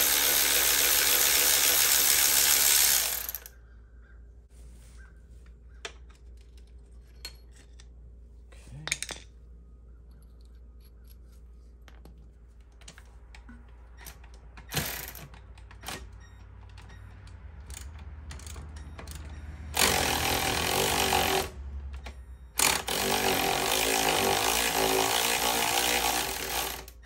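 Cordless ratchet running in bursts as it spins suspension bolts loose: a steady motor whir for about three seconds, then a quiet stretch with a few light clicks and knocks, then two more runs about twenty seconds in and again from about twenty-three to twenty-six seconds.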